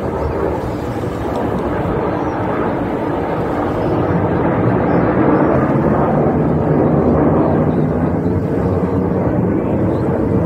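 Jet engines of a formation of BAE Hawk aerobatic jets flying a display overhead: a steady rushing rumble that swells about halfway through.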